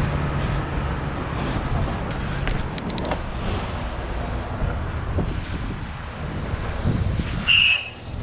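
Street traffic noise with wind buffeting the microphone, a few light clicks about two to three seconds in, and a short high-pitched squeal near the end.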